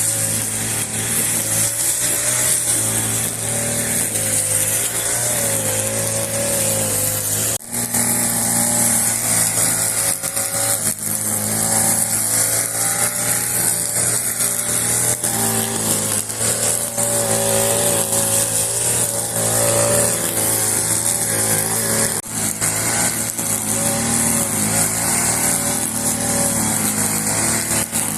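Small petrol engine of a grass-cutting machine running steadily while mowing grass.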